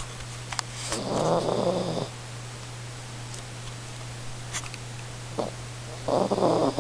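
Sleeping dog snoring: two snores, each about a second long, one about a second in and one near the end, with a couple of faint clicks between them.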